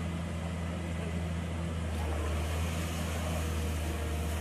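Amphibious excavator's diesel engine running steadily with a low, even drone, a little louder from about two seconds in as the arm works.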